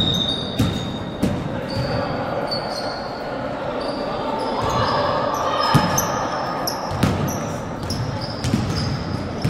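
Basketball bouncing on an indoor court during a game, with several irregularly spaced thuds. Short, high sneaker squeaks and players' voices are heard around them.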